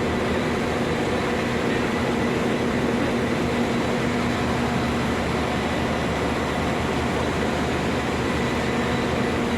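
Idling diesel trains, a class 4000 diesel multiple unit and a class 201 diesel locomotive: a steady engine hum with a few held tones, unchanging throughout.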